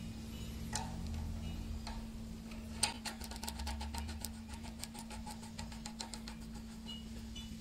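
Small keyless drill chuck spun by hand onto a threaded bolt, making a rapid run of light metallic clicks with one louder click about three seconds in, over a steady low hum.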